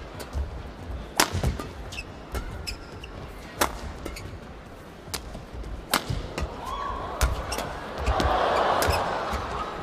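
Badminton rally: sharp cracks of rackets hitting the shuttlecock, the loudest about every two and a half seconds, with lighter clicks in between. Near the end the arena crowd lets out a short cheer.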